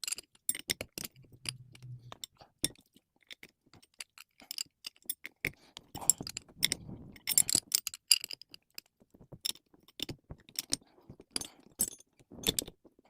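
Small metal grease-gun fittings and coupler parts clicking and clinking, with short scrapes, as they are handled and threaded together by hand.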